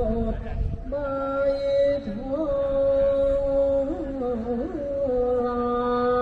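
Thai royal barge chant (hae ruea) sung in long held notes with wavering, bending ornaments between them. A low rumble sits under the first second.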